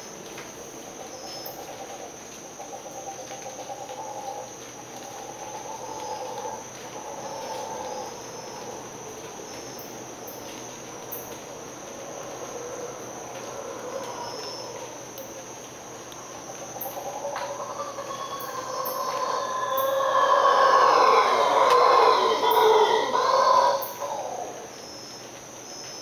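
Mantled howler monkeys howling: faint at first, then swelling into loud, deep howls from about two-thirds of the way in that fall away shortly before the end. A steady high insect trill runs underneath.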